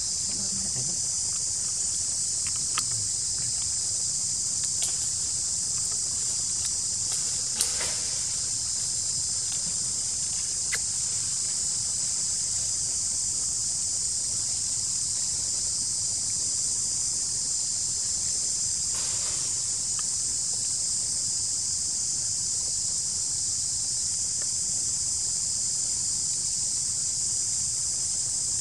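Steady, high-pitched drone of forest insects. A few faint ticks and one soft rustle come in the first two-thirds.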